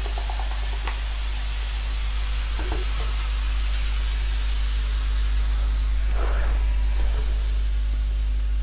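Electric nano disinfectant mist sprayer running, giving a steady hiss of fine spray over a constant low hum.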